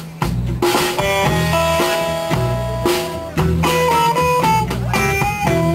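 Live band playing an instrumental guitar passage: electric guitar picking a melody of single stepping notes over a repeating bass line.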